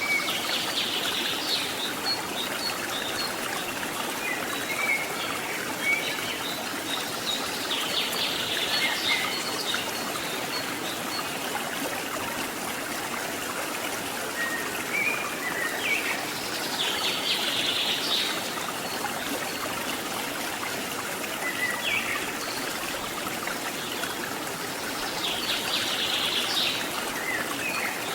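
Stream water running steadily, with a bird's high trilling calls coming in about four times.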